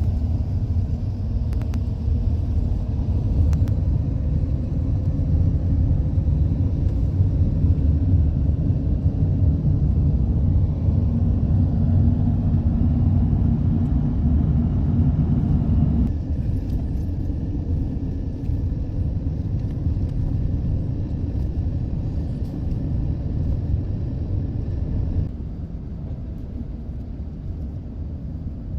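Minivan driving along a desert road, heard from inside the cabin as a steady low rumble of engine and road noise. The rumble drops in level about halfway through and again near the end.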